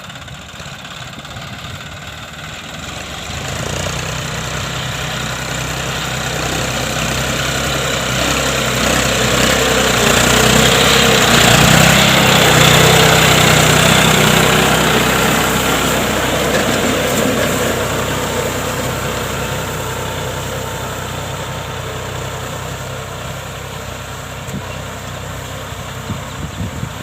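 John Deere 5050D tractor's turbocharged diesel engine running under load while plowing. It comes closer and grows louder to a peak about halfway through, then fades as it moves away.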